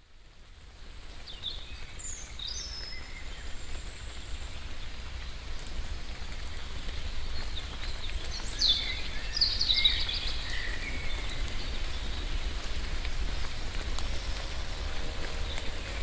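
Nature ambience fading in: a steady rushing noise, with short high bird chirps a few times over it.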